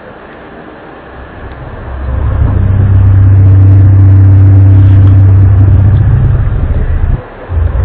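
A loud, low droning hum at a steady pitch, of the kind reported in 2012 as a strange sound in the sky. It swells in about two seconds in, holds, breaks off briefly near the end, then comes back.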